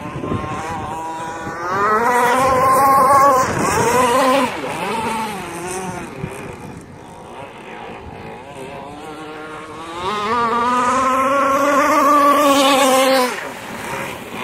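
Zenoah G260PUM 26cc two-stroke engine of an RC catamaran running at high revs, its pitch wavering as the boat runs across the water. It gets loudest twice, about two seconds in and again near the end, as the boat passes close.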